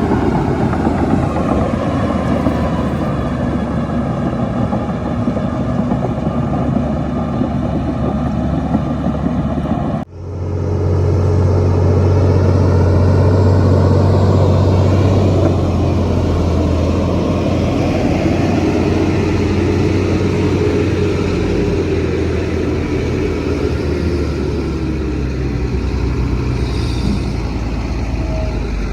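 Heavy diesel engines of earthmoving machinery running. The sound breaks off abruptly about ten seconds in, then resumes with a louder deep drone that eases back after about five seconds.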